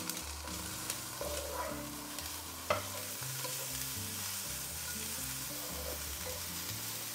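Chicken strips, cabbage, carrot and green pepper sizzling in a hot frying pan as they are stir-fried with a slotted wooden spatula, the spatula scraping and tapping against the pan, with one sharper knock about two and a half seconds in.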